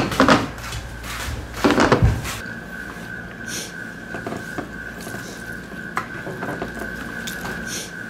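Plates and serving utensils clattering and knocking as food is dished up, then quieter clinks of tableware during eating, with a faint steady high-pitched tone under them from about two and a half seconds in.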